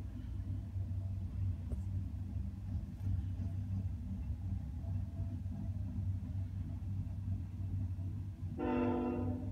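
Coal train's hopper cars rolling past, a steady low rumble. Near the end a short steady pitched tone, made of several pitches, sounds for about a second.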